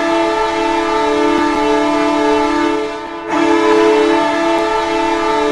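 Ice hockey goal horn sounding a long, steady blast of several tones at once. The blast breaks off briefly about three seconds in, then sounds again. It is the signal that a goal has been scored.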